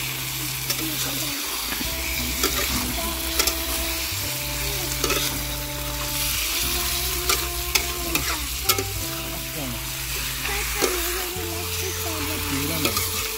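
Chicken pieces sizzling as they fry in hot oil in a metal kadai, stirred with a metal spatula that scrapes and clicks against the pan many times.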